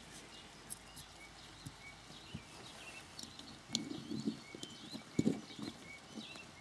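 Small metal clicks and handling knocks from the M1 carbine's hammer spring and plunger being compressed and worked into the trigger housing, busiest from about four to five and a half seconds in. Birds chirp faintly throughout.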